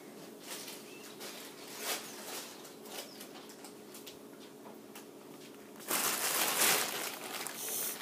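Faint clicks and rustles, then about six seconds in a loud, noisy flurry lasting about two seconds: a hand-held female shama fluttering its wings against the hands and towel as it struggles.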